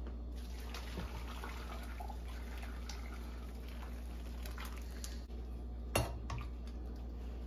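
Metal spoon clinking and scraping in a pot of chicken pieces in hot spiced water, with liquid sloshing as the pieces are stirred and turned. A sharp clink about six seconds in is the loudest sound, over a steady low hum.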